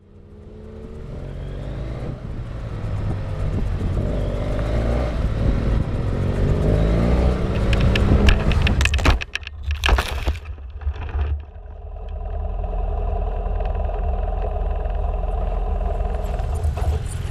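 Off-road motorcycle engine running with its revs rising and falling as it rides. About eight seconds in comes a quick run of clattering knocks as the bike goes down. From about twelve seconds the engine runs steadily at idle.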